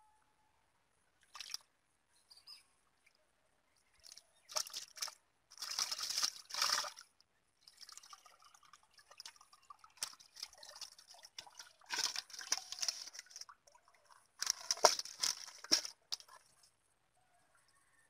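Water splashing and pouring in several bursts as a plastic basin is scooped through a muddy, water-filled hole and lifted out dripping, with small fish in it.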